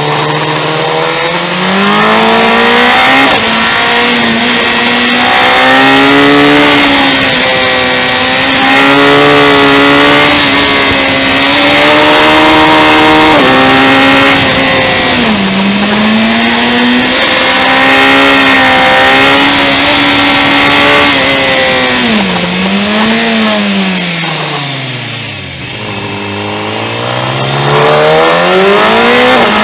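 Motorcycle engine heard from onboard, revs climbing and falling through gear changes as the bike is ridden through bends, with steady wind noise over it. About three-quarters of the way in the engine drops to its lowest revs and goes quieter as the bike slows for a corner, then pulls back up.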